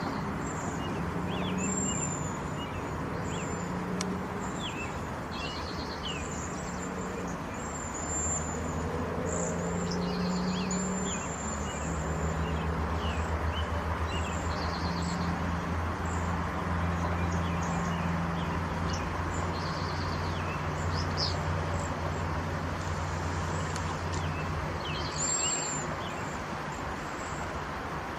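Cedar waxwings calling: thin, very high whistled notes, repeated throughout with shorter chirps between them. A steady low hum runs underneath.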